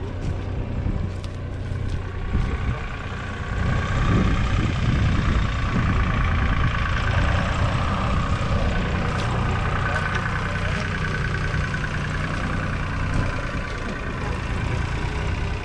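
1964 Fordson Super Major's 3.6-litre four-cylinder diesel engine running at idle, growing louder about four seconds in.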